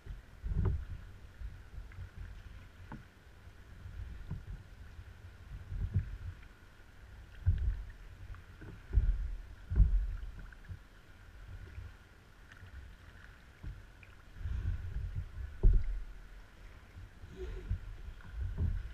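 Water splashing and lapping around a sea kayak as it is paddled over calm water, with irregular paddle strokes every second or two.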